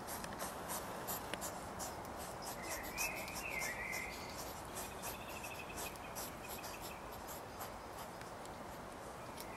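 European hedgehog chewing and crunching food, a quick, uneven run of small crisp clicks. Birds chirp briefly in the background a few seconds in.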